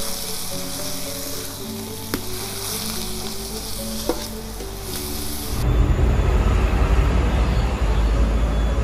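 Leaves sizzling as they are stir-fried in a metal wok, with two sharp clicks of the metal spatula against the pan, under background music with a melody. About five and a half seconds in, the sizzle and music give way to a loud low rumble.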